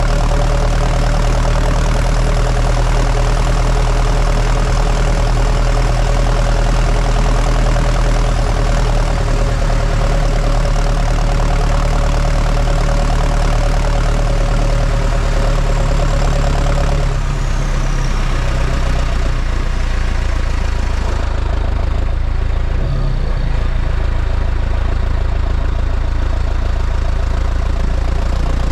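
New Holland T5050 tractor's diesel engine running as the tractor drives along, heard from beside the exhaust stack. A little past halfway the engine note drops lower and the sound eases off slightly.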